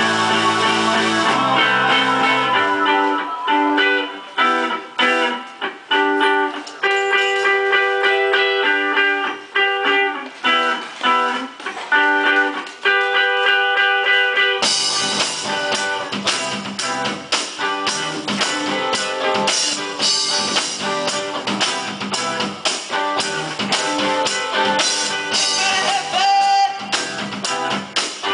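Indie rock band playing live with electric guitars and bass. It opens on held chords, then a guitar picks a repeated figure in short stop-start phrases. Just before halfway the whole band comes in, fuller and steadier.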